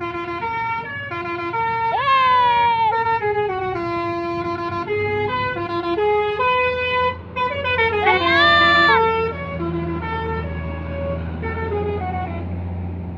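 Basuri telolet horn on a tour bus playing a melody of quick stepped notes. Two notes swoop upward like a siren, about two seconds in and again about eight seconds in. A bus engine's low hum runs underneath and grows louder in the second half.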